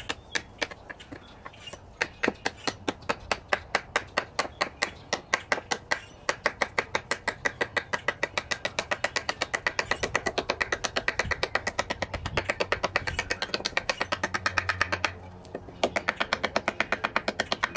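Wood being struck over and over with a Mora Companion Heavy Duty MG knife: sharp, evenly spaced knocks that speed up to about six to eight a second, with a brief pause near the end.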